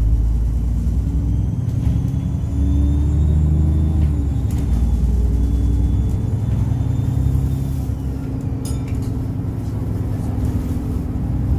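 Alexander Dennis Enviro 400 bus's diesel engine heard from onboard: a steady low drone with a faint high turbo whistle above it.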